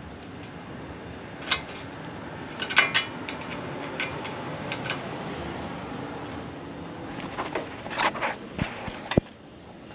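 Scattered metallic clicks and clinks of a screwdriver and screw working against the metal chain guard and mount while a panhead screw is driven in by hand. The clinks come in irregular clusters, loudest about three seconds in and again near the eighth second.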